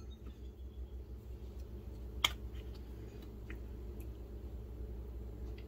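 Small handling sounds from a plastic squeeze bottle and metal measuring spoon while mustard is squeezed out: one sharp click about two seconds in and a few faint ticks, over a steady low hum of room tone.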